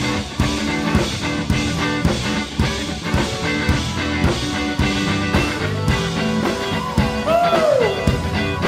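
Live band playing an upbeat groove without vocals: drums keeping a steady beat under electric guitar and keyboards, with a note that bends up and back down near the end.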